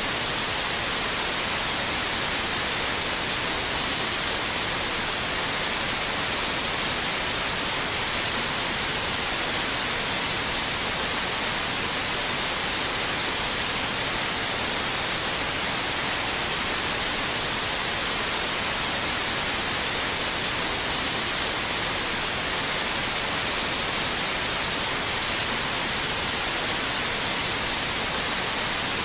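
Steady white noise: an even, unchanging hiss, bright and strongest in the high end.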